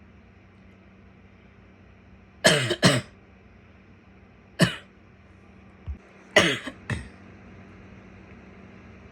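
A woman coughing in three short fits: a double cough, a single cough, then another double cough.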